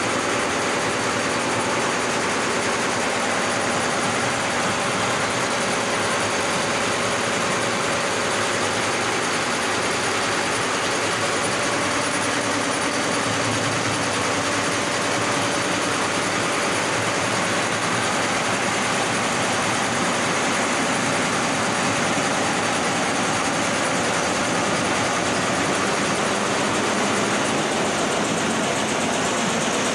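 Multi-head embroidery machine running, its main shaft turning and heads working, giving a steady, even mechanical noise.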